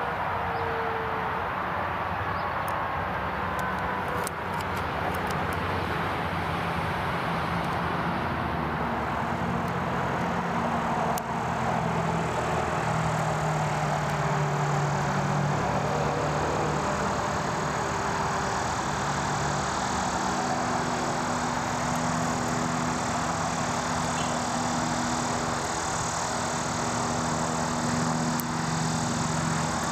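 Eurocopter AS350 Écureuil helicopter flying past: steady turbine and rotor noise, with a few falling tones near the start and a slight rise in loudness about eleven seconds in.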